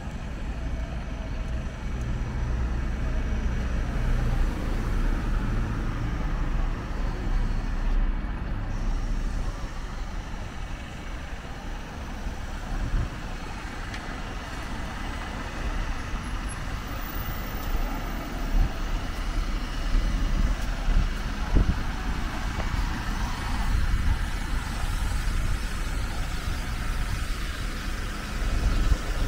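City street ambience: road traffic passing, with engine noise over a steady low rumble and a few louder swells as vehicles go by.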